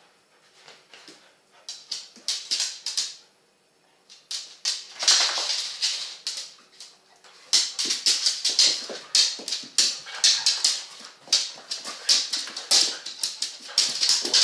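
Two dogs, a large one and a puppy, play-fighting: a quick run of short, sharp whimpers and scuffles, with a brief quiet spell about a third of the way in, then almost without pause through the second half.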